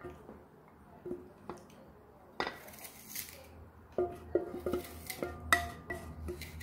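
Soy-braised black beans sliding out of a tilted white enamel pot into a glass container: a few soft knocks, a short rush of beans falling about two and a half seconds in, then a quick run of ringing clinks of enamel and glass from about four seconds in.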